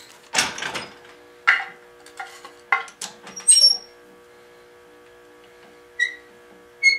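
Workshop handling sounds at a wooden bench vise: a run of short knocks and clatters of wood and tools over the first few seconds, then two small clinks with a brief ring near the end. A faint steady hum runs underneath.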